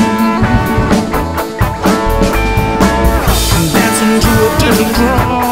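Psychedelic rock song in an instrumental stretch between sung lines: electric guitar over a drum kit keeping a steady beat.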